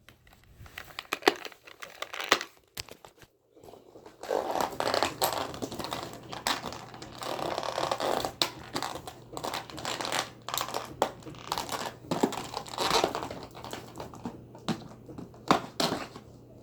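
Toy box packaging being opened by hand, crinkling and crumpling. A few sharp clicks and taps come first, then continuous rustling and crackling from about four seconds in.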